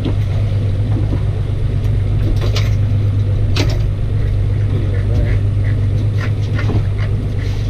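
Outboard motor idling steadily, a constant low hum, with a couple of sharp knocks and some lighter clicks from handling on the deck.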